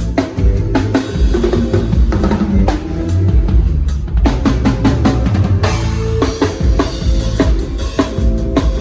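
Live band music driven by a drum kit: kick drum, snare and rimshot strokes played in a steady groove over bass and other instruments.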